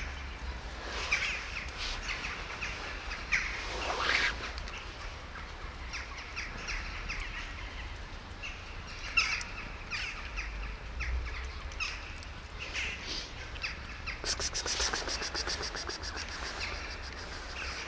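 Birds chirping in short scattered calls, with a fast rattling call starting about fourteen seconds in.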